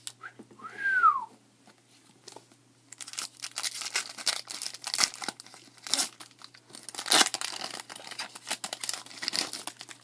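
A foil-wrapped trading-card pack being torn open and its wrapper crinkled, in an irregular crackle from about three seconds in. Near the start there is a short high vocal sound that rises and falls in pitch.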